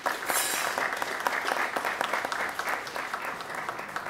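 Audience applauding a speaker with dense, steady clapping.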